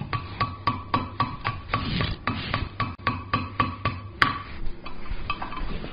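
Blacksmith's hand hammer striking a red-hot mild steel bar over the horn of an anvil in quick, even blows, about three a second, each with a short metallic ring, bending the bar into a hook. One harder blow lands about four seconds in, followed by lighter, sparser taps.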